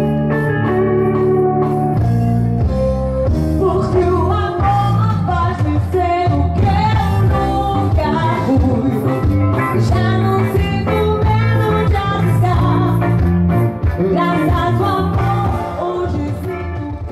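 Live band playing amplified through the PA, with a woman singing lead over electric bass and keyboard. The music starts fading out near the end.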